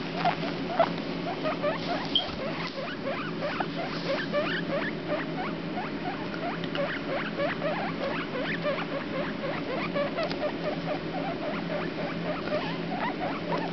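Baby guinea pig, four days old, squeaking steadily: a rapid run of short, high squeaks, several a second, over a steady low background hum.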